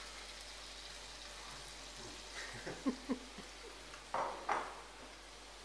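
Green peppers and chopped tomatoes frying in olive oil in a pan, a steady sizzling hiss. A few faint short sounds come in the middle, and two brief louder ones about four seconds in.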